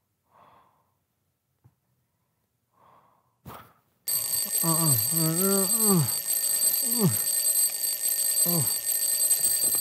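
Soft breaths of a sleeper, a click, then from about four seconds in a loud, steady, shrill ringing of an alarm clock, with a man groaning several times over it.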